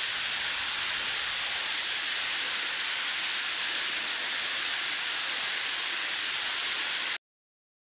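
Steady rush of a waterfall, water pouring and splashing onto rocks, that cuts off abruptly about seven seconds in.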